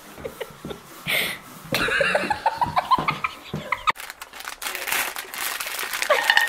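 High giggling voices, then, after a cut about four seconds in, popcorn in a frying pan on the stove making a rustling, crackling noise with many small clicks.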